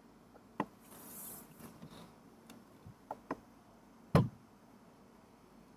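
A few faint clicks and one louder knock about four seconds in, over quiet room tone: desk and mouse handling noises at a computer.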